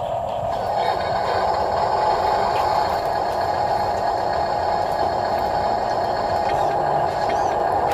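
Steady whine of an RC construction model's electric motor and gears, straining as the model dump truck sits stuck in mud, growing a little louder about half a second in.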